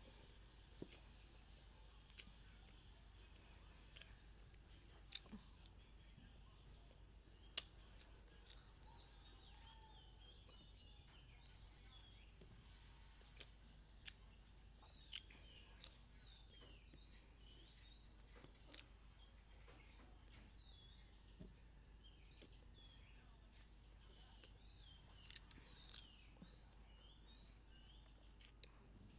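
A steady high-pitched insect drone, like crickets, with small birds chirping faintly through the middle and later part, and a dozen or so sharp, separate clicks and taps scattered throughout.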